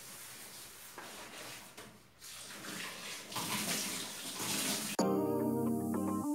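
Kitchen tap running into a stainless-steel sink, a steady hiss of water that gets stronger a couple of seconds in. About five seconds in it cuts off suddenly and background music begins.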